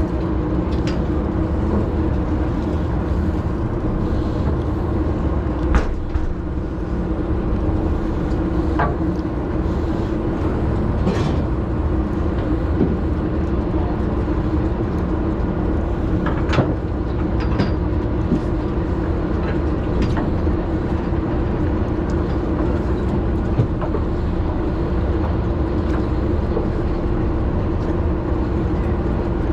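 Steady hum of a party boat's engine or onboard machinery, with a few sharp knocks and clicks scattered through it.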